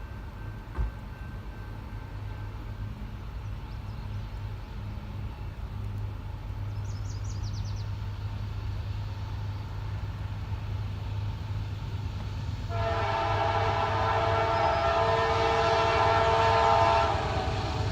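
Low rumble of an approaching CSX diesel locomotive that slowly grows louder. About 13 seconds in, the locomotive's air horn sounds one long chord of several tones for about four seconds, then cuts off.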